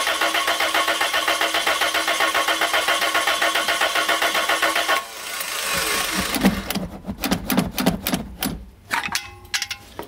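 Toyota Previa's four-cylinder engine cranking on the starter without firing, an even chugging at about five beats a second, with the throttle held open. It stops about halfway through and is followed by scattered knocks and handling noises. The engine will not catch because there is no spark, which the owner blames on a faulty aftermarket alarm box leaving the ignition circuit open.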